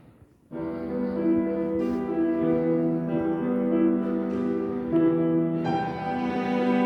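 Piano and cello start an instrumental introduction about half a second in, playing sustained chords; the sound fills out somewhat near the end.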